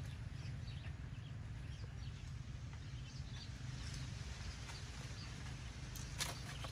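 Outdoor ambience: a steady low rumble with faint, scattered bird chirps, and a couple of sharp clicks near the end.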